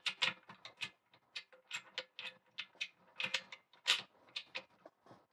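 Irregular small metallic clicks and scrapes as the bolt of a Springfield Armory M1A SOCOM II .308 rifle is worked by hand and rotated back into its receiver during reassembly. One sharper click comes about four seconds in.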